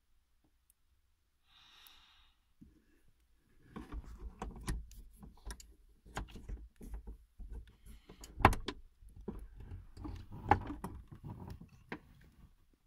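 Flat screwdriver working the tailgate lock mechanism of an Opel Astra H hatchback through the hole in the trim: a run of metallic clicks, scrapes and knocks starting about four seconds in, with two sharp clacks about two seconds apart in the second half.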